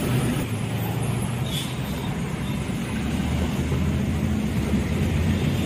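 Steady low rumble of city road traffic and motor-vehicle engines.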